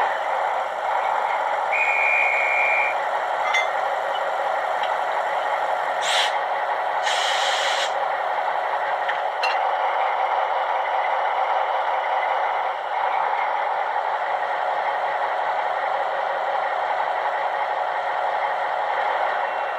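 Model-railway sound decoder (ZIMO MX645) in a Roco V200 model locomotive playing diesel engine running sound through its small speaker, steady and thin with little bass. A short beep comes about two seconds in, and two short hisses of air follow around six and seven seconds in.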